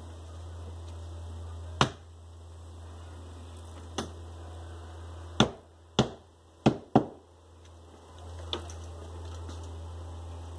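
Hammer blows knocking a metal tack strip into the sofa's wooden frame through the upholstery fabric. There are seven separate knocks at an uneven pace, four of them loud and close together in the middle, the others fainter.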